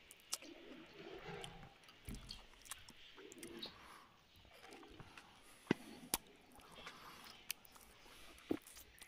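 A person chewing mouthfuls of rice and curry eaten by hand, with soft wet mouth noises and a few sharp clicks and smacks, the loudest two a little past the middle.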